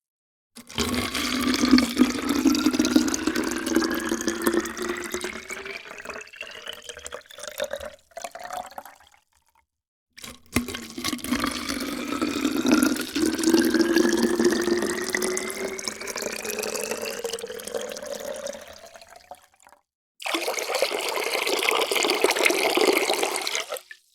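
Water poured into a container in two long pours, each with a tone that rises steadily in pitch as the vessel fills. A shorter pour without the rising tone follows near the end.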